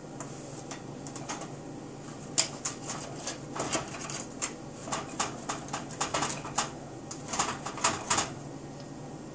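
A run of irregular sharp clicks and taps, a few a second, starting about two seconds in and stopping shortly before the end.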